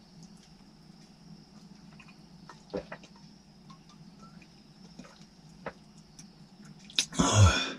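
Quiet sips of a drink from a metal mug with a few light clicks, then near the end a loud breathy sigh after the drink.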